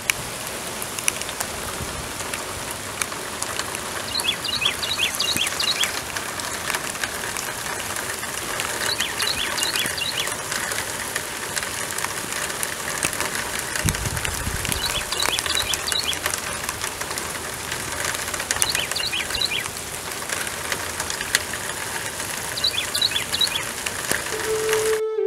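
Steady rain falling, a continuous hiss with a patter of drops. A bird repeats a quick run of high chirps every few seconds, and there is a brief low rumble about midway.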